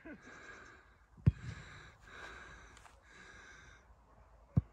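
Two sharp thumps about three seconds apart, with breathing close to the microphone in between.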